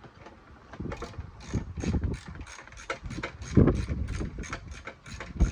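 Socket ratchet wrench clicking in quick, even strokes, about three clicks a second, starting about a second in, as an engine-mount bolt is turned. A couple of duller knocks come in between.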